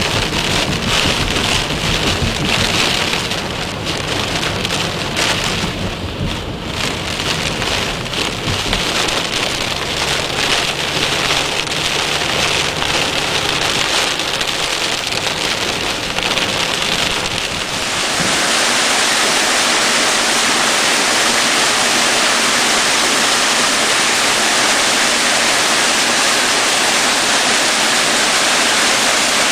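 Heavy thunderstorm rain with wind noise on the microphone. About 18 s in, the sound changes abruptly to a steady, even rush, like a downpour or running water.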